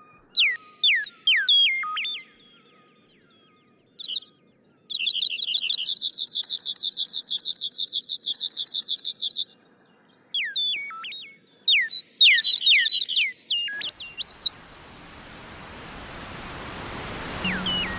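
Birds calling: a run of sharp whistles that fall steeply in pitch, then a long, fast, high trill lasting about four seconds, then more falling whistles and a shorter trill. Near the end the calls give way to a steady outdoor hiss with a faint whistle or two.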